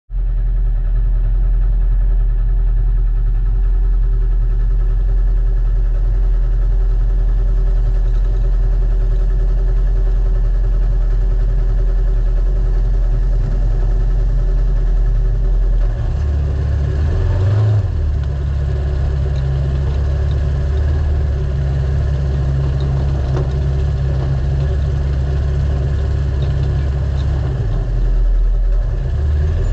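Naturally aspirated race UTV engine running at a steady low speed. Its note steps up about halfway through, holds, and drops back near the end.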